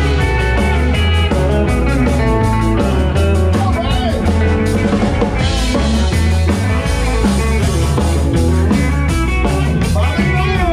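Live country-rock band playing loudly: electric guitar over a drum kit with a low bass line underneath.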